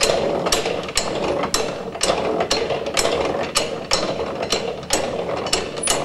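Antique electric washing machine running: its motor-driven spur gears whir steadily while the cone agitator's drive clacks about twice a second.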